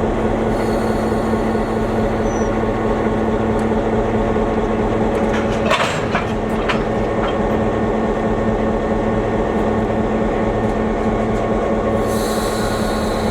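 A train running, with the steady drone of an EMD GP9 diesel locomotive's engine. A short cluster of clicks and knocks comes about six seconds in.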